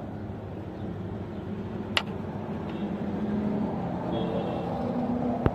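1986 Toyota car engine running with a misfire fault, its hum rising slightly in pitch and level. Two sharp clicks cut through it, one about two seconds in and one near the end.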